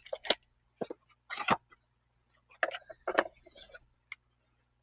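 Handling noise from a tester kit: a small plastic bag of test leads rustling and being set into its box, and a coiled cable being moved, in several short rustles and taps.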